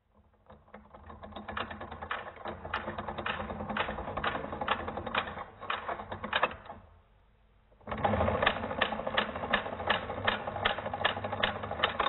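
Rotary telephone dial mechanism played in slow motion: a long run of rapid, even clicking from the dial's gears, governor and pulse contacts as it is wound up. It stops for about a second, then a second, louder run of clicks follows as the dial returns and the pulse contacts open and close.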